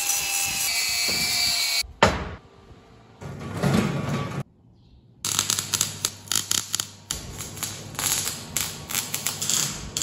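An angle grinder runs steadily for about the first two seconds. After a short break, a MIG welder's arc crackles rapidly and irregularly from about five seconds in to the end, welding the steel shaft.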